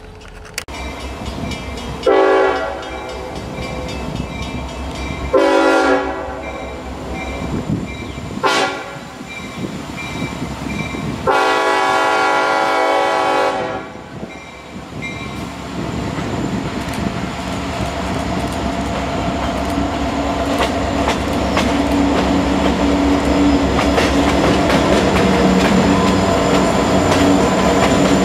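Horn of a lead EMD SD50-3 freight locomotive sounding four blasts, long, long, short, long: the grade-crossing signal. Then the diesel locomotives and the rolling train get steadily louder as they approach and pass, with a clickety-clack of wheels on rail joints.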